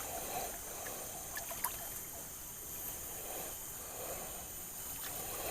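River water trickling and flowing steadily around a bamboo raft that has snagged, with a couple of faint knocks about one and a half seconds in.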